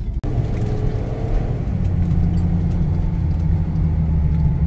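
Engine and road rumble heard from inside a motorhome's cab while driving, a steady low drone that grows stronger about two seconds in.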